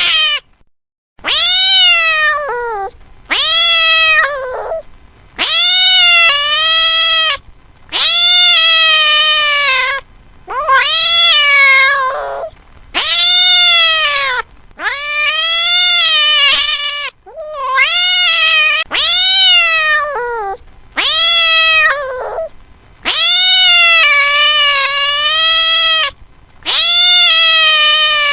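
A cat meowing over and over: about a dozen long, loud meows roughly two seconds apart, each rising and then falling in pitch.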